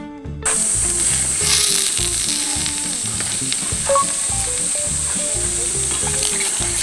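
Steaks sizzling on a hot steel griddle, the frying hiss starting suddenly about half a second in, with a couple of sharp metal clicks from a spatula and tongs against the plate in the second half.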